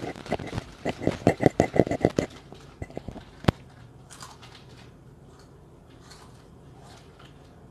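Crunchy Kurkure snacks being chewed, a quick run of crunches for about two seconds, then a few scattered crunches and clicks before it goes quiet.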